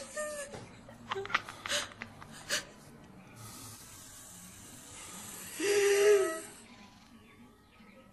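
A few clicks and a soft breathy hiss, then a short pitched moan-like voice about six seconds in, fading to quiet near the end.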